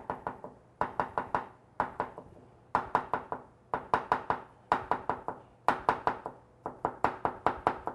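Chinese cleaver mincing fermented black beans on a wooden cutting board: quick runs of four to six chops, a new run starting about every second.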